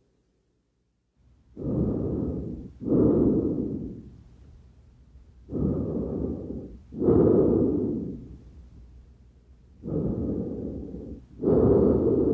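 Normal tracheal breath sounds: three full breaths of loud airflow noise, each inspiration and expiration about equally long with a short gap between them.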